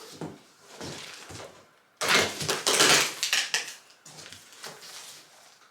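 Packaging being handled and pulled open: irregular crinkling and rustling of plastic wrap and cardboard, loudest in a long burst about two seconds in.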